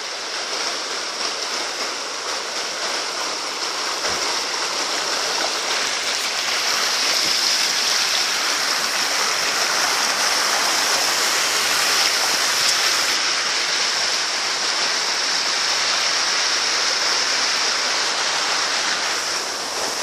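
A jungle river rushing over rocks: a steady, loud rush of water that grows louder partway through and then holds.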